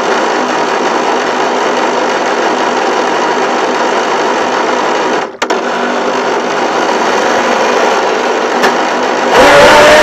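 Radio-controlled boat's motor running steadily. Near the end it gets louder, with a steady whine coming in as it speeds up.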